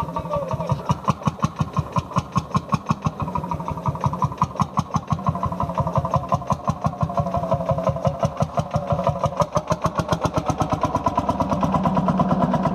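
Old Landini tractor's engine running with slow, even exhaust beats, about five a second, quickening a little near the end.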